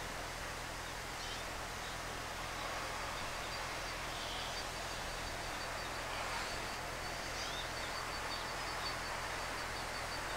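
Outdoor ambience: a steady low hum under an even background hiss, with faint scattered bird chirps and a high, evenly pulsing tone setting in a few seconds in.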